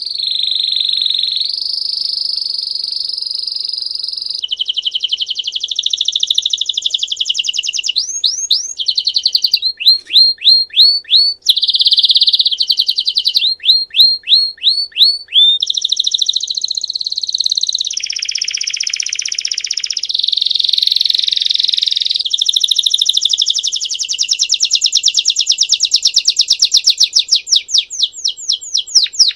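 Belgian canary singing a continuous song of rolling trills and rapid runs of quick sweeping notes, switching to a new phrase every second or two.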